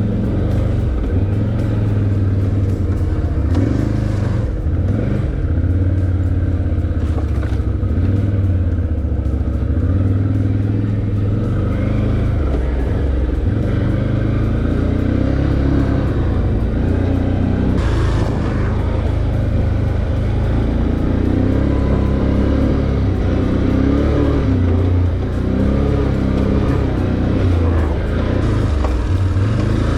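Can-Am ATV engine running under way on a dirt trail, its note rising and falling with the throttle.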